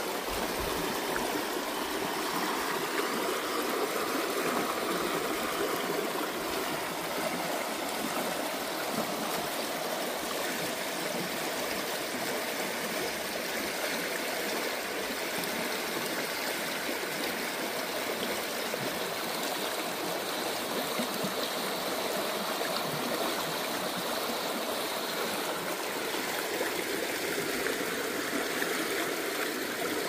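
Shallow stream running over rocks and through a small riffle: a steady rush and babble of water.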